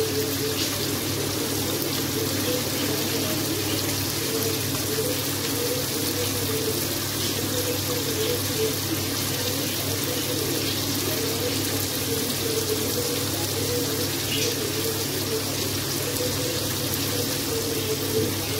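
Hands rubbing the charred skins off roasted eggplants in a tub of water, with small sloshes and drips, over a steady hiss and low hum.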